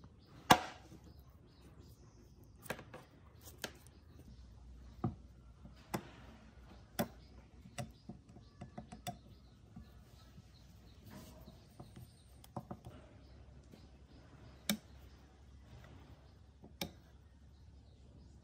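Irregular sharp knocks and clicks of hard objects being handled, about a dozen in all, the loudest about half a second in.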